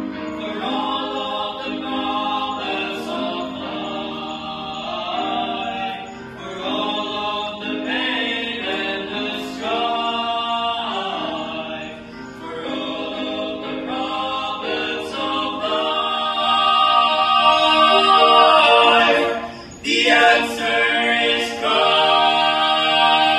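A vocal trio of boys singing a Christian song a cappella, in long held phrases with short breaks between them; the singing swells to its loudest about three quarters of the way through.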